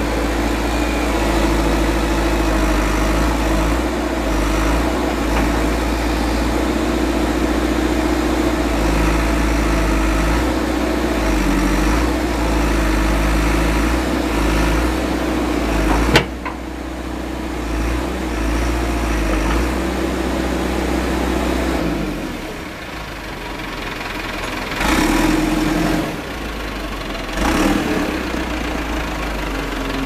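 A 1997 JCB 217 backhoe loader's diesel engine running steadily at idle. There is one sharp click about halfway through, and near the end the engine briefly gets louder twice.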